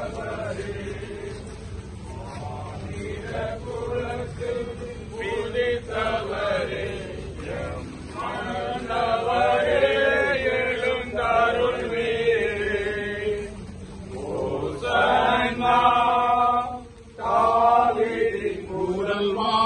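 A group of people chanting a hymn together, in phrases with short pauses between them.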